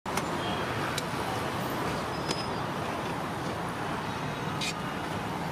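Steady roadside traffic noise, with a few light clicks from the steel serving spoon, pot and tray as rice is dished onto a plate.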